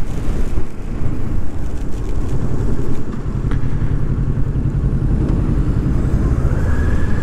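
Kawasaki Ninja 650's parallel-twin engine running as the motorcycle rides along, heard under heavy wind rush on the helmet camera. The engine settles into a steady note about two seconds in.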